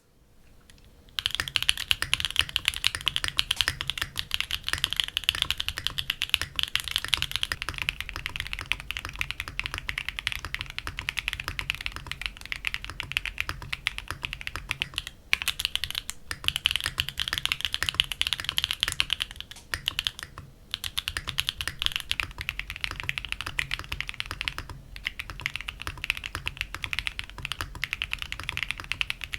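Fast, continuous typing on a Mode Sonnet mechanical keyboard with a carbon fiber plate and plate foam: dense keystroke clicks over a deeper thock, with brief pauses a few times.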